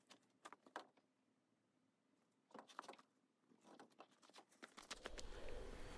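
Near silence: a few faint, scattered clicks and knocks. A low rumble comes in near the end.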